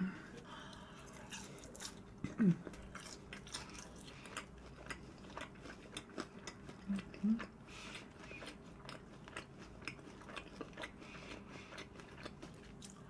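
A person chewing crispy fried food with the mouth closed: irregular wet, crunchy clicks throughout, with a short hum about two and a half seconds in and two brief hums near the middle.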